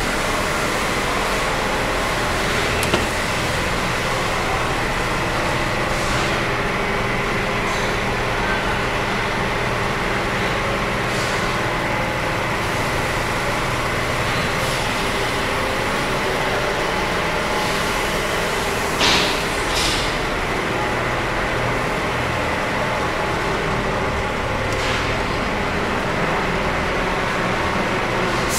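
Steady din of wood-panel factory machinery running, a constant mechanical hum made of several steady tones under a broad roar. Short hissing bursts come now and then, the strongest about two-thirds of the way through.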